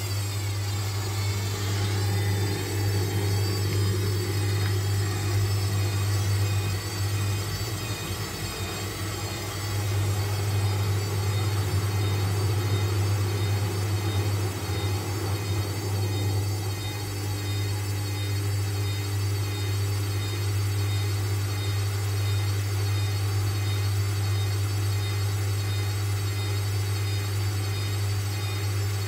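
Hotpoint front-loading washing machine running with a steady low hum as its drum turns a heavily over-sudsed load, the condition behind the machine's suds lock.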